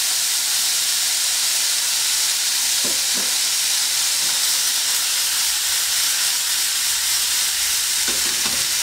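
Cocktail sausages sizzling in hot oil in a frying pan, a steady hiss just after Worcestershire sauce and Maggi seasoning have been poured in. A few faint knocks come about three seconds in and again near the end.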